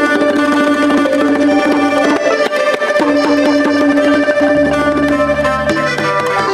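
Instrumental traditional-style music with a steady percussion beat, a held drone and melody notes, as the instrumental part of a sung song.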